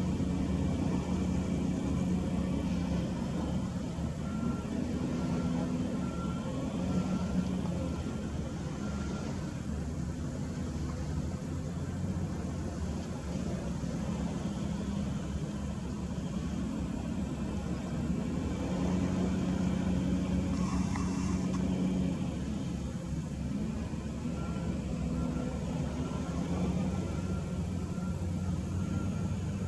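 Hitachi ZW310 wheel loader's diesel engine running and working, revving up in several spells as it loads and drives. A faint beeping in short, even pulses comes in twice, about a third of the way in and near the end.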